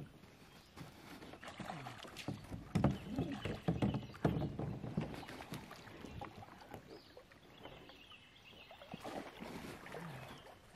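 Irregular knocks and splashing around a plastic fishing kayak, with a dense cluster of sharp knocks in the first few seconds and fewer later.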